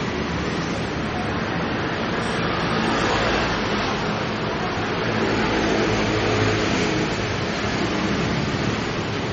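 Street traffic: motor vehicles passing by, the engine and road noise swelling about three seconds in and again, louder, around six seconds, over a steady street hum.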